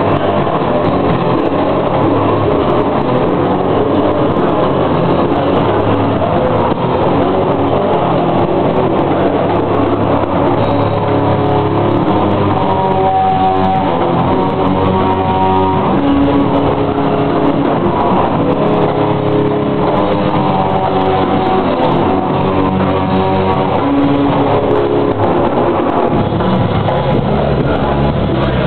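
Live rock band playing loud, with electric guitars, bass and a drum kit. Clearer held guitar notes come through about midway and again a little later.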